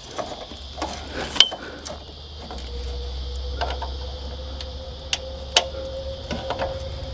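Scattered small metallic clicks and knocks as a locking pin is worked into the Starlink mast's mount on the caravan drawbar, over a steady insect drone.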